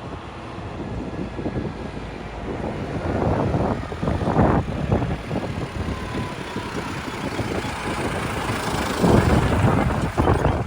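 Diesel engine of a JCB 3DX backhoe loader working a load of mud, a dense, noisy running sound that swells louder twice, about three to five seconds in and again near the end.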